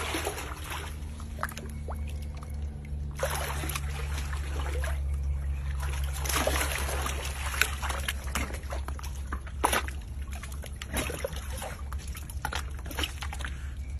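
Water sloshing and splashing in surges as an alligator lunges up out of a pond to take a piece of chicken, with dripping water and a few sharp clacks, loudest about halfway through. A steady low hum runs underneath.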